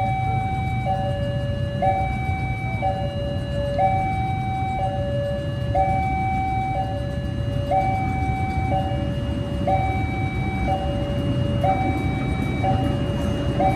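Railway level-crossing warning alarm sounding a two-tone hi-lo signal, the tones alternating about once a second, which warns of an approaching train. The low rumble of waiting motorcycle traffic runs underneath.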